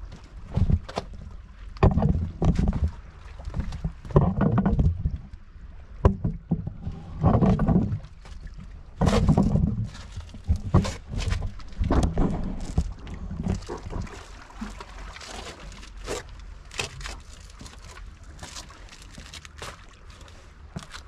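Footsteps scuffing and knocking on large shoreline boulders as a person clambers over them, mixed with heavy rumbling bumps from a carried camera being handled. The bumps ease off about halfway, leaving scattered sharper clicks of boots on stone.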